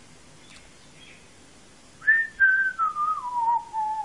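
Someone whistling a short falling phrase of about five held notes, each lower than the last, starting about two seconds in after a stretch of low background hum. It is heard through a television's speaker.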